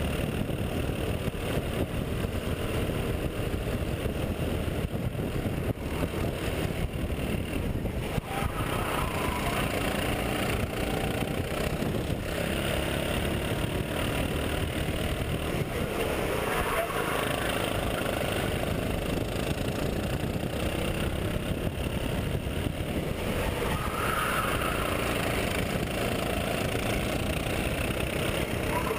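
Rental go-kart engine running at racing speed, heard from the kart itself, with another kart's engine close by.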